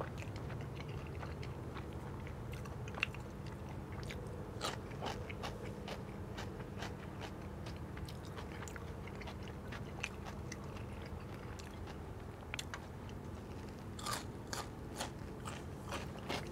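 Close-miked chewing of a mouthful of rice and fried pork, with wet mouth clicks and small crunches throughout and a steady low hum underneath. The clicks come thicker near the end, along with light taps of the spoon on the plate.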